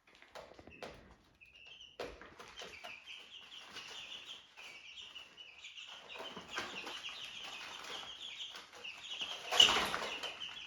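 A brood of young chicks peeping, many short high cheeps overlapping, sparse at first and then busy from about two seconds in. A louder rustling clatter about three-quarters of the way through.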